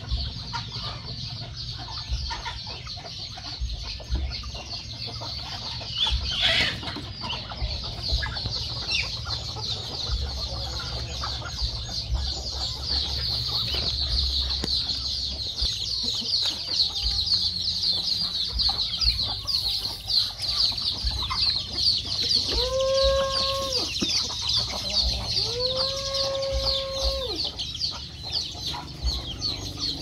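A flock of chickens clucking as they feed, over constant high chirping. A rooster crows twice, long and level, about two-thirds of the way through.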